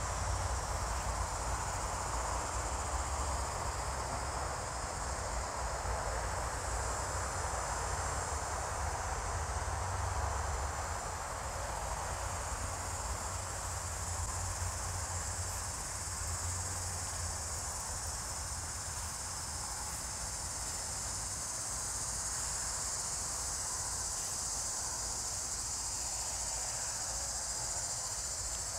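Steady high-pitched chorus of insects, with a low rumble that eases off after about ten seconds.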